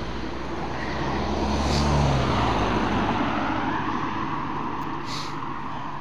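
A car passing on the road alongside: its engine and tyre noise swells to a peak about two seconds in and then fades away, over a steady background of traffic and rolling noise.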